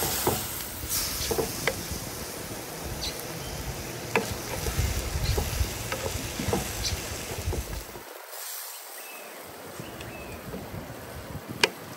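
Beef and pepper strips sizzling in an earthenware cazuela with a little added water, while a wooden spoon stirs and scrapes against the clay with scattered light clicks. The sizzle drops quieter about two-thirds through, and a single sharp click comes near the end.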